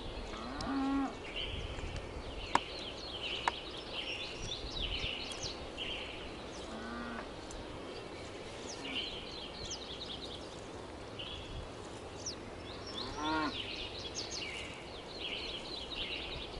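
Cattle mooing three times, about six seconds apart, over constant high chirping.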